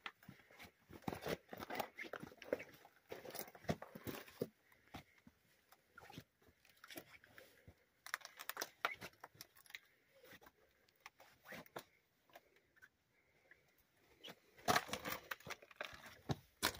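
Footsteps crunching on loose gravel and rock in irregular bursts with pauses between, loudest near the end.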